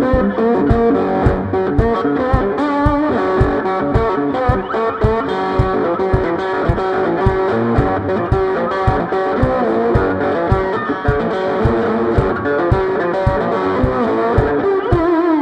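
Homemade can banjo, amplified, played in a busy improvised plucked riff over a steady low thumping beat about three times a second.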